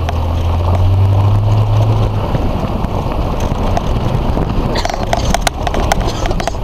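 Jeep Cherokee driving off-road. Its engine drones steadily for the first couple of seconds, then gives way to a rough rumble from the truck bouncing over uneven ground. Sharp knocks and rattles cluster about five seconds in.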